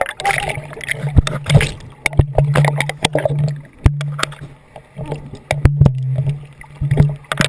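Water splashing and sloshing close to the microphone, with many sharp knocks and a low hum that comes and goes.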